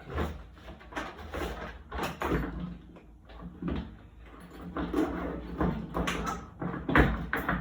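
Door clunking and knocking: a string of irregular knocks and clunks, the loudest near the end.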